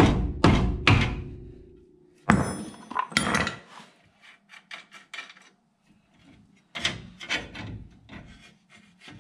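Sledgehammer hitting the steel front spindle of a 1999 Chevy C1500 three times, about two blows a second, each leaving a metallic ring, to break the spindle loose. About two seconds in comes a sharp metal clank, followed by scattered lighter clanks and rattles as the spindle is worked by hand.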